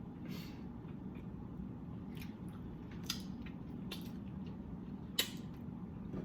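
Close-up chewing: a mouthful of food being chewed, with a few short wet smacking clicks spread a second or so apart over a steady low hum.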